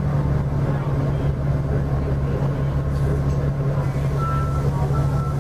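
Cummins ISL inline-six diesel of a Nova LFS city bus running steadily under way, heard from inside the passenger cabin as a low drone. Near the end a high electronic beep starts repeating, each about half a second long.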